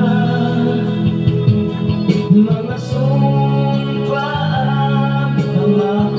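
A man singing into a handheld microphone over instrumental backing music.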